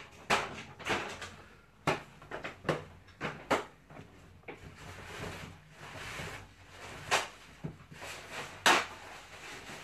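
Someone rummaging off-camera: a string of sharp knocks and clatters at irregular spacing with rustling between, typical of drawers and cupboard doors being opened and shut; the loudest knock comes near the end.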